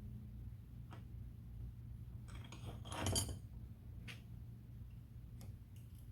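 Small metal parts and tools clinking and rattling on a workbench as a tractor hand pump is reassembled. There are a few single clicks and a short burst of clatter about three seconds in.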